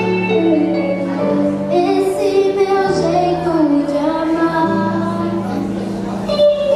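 A young girl singing a slow melody into a microphone over the PA, accompanied by sustained low chords that change every couple of seconds.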